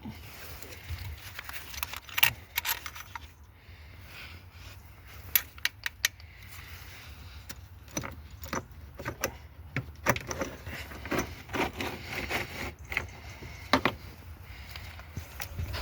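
Metal hand tools and engine parts clinking and tapping during work on a diesel engine: a string of sharp metallic clicks, sparse at first and busier in the second half.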